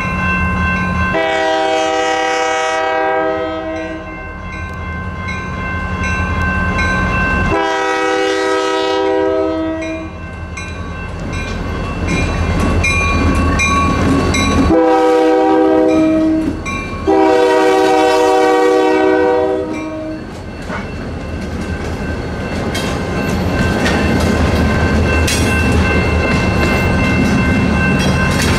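Union Pacific GP40-2 diesel locomotive's horn sounding the grade-crossing signal: two long blasts, a short one and a final long one. The crossing's electronic bells ring steadily underneath, along with the locomotive's engine rumble. Freight cars then roll through the crossing with wheels clacking on the rails.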